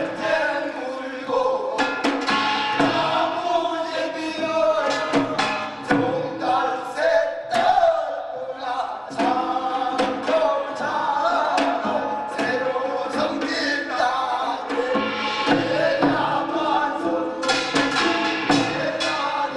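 Korean chugwon sorigut blessing song: a male voice chanting the sung blessing over samul nori percussion, with drum and gong strokes struck in an irregular, driving rhythm.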